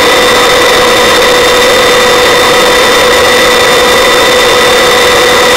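Helicopter in flight: steady engine and rotor noise with a constant whine that does not change.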